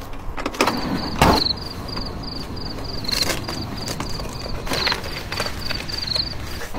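A cricket chirping steadily, short high chirps repeated several times a second. Over it come a few irregular crunches and knocks, the loudest about a second in.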